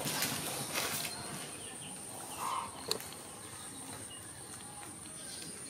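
Crinkling of a disposable diaper being handled and unfolded, loudest in the first second, with a brief squeak about two and a half seconds in and a sharp click just after. A steady high-pitched hum runs underneath.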